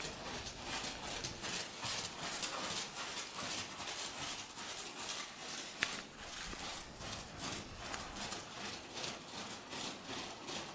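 A ridden horse's hooves beating on soft arena sand in a steady rhythm, with one sharp click about six seconds in.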